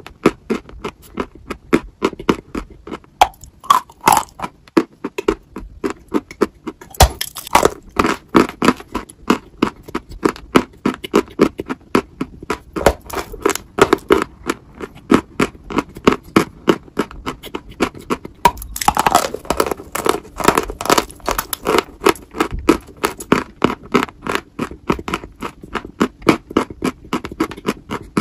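Close-up crunching and chewing of a dry white chalky lump: a rapid run of crisp crunches, several a second, with denser, brighter crackling bites about seven seconds in and again around nineteen seconds.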